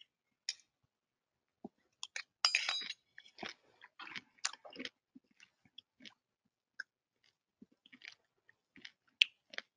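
Quiet, irregular clicks and crackles close to the microphone, with a denser patch from about two to five seconds in.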